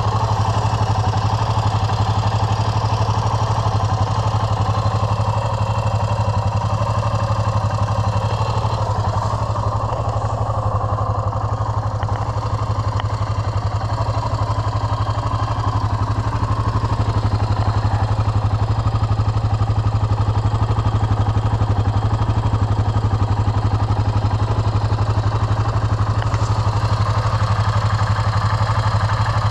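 Yamaha XT 600's air-cooled single-cylinder four-stroke engine idling steadily, heard close up.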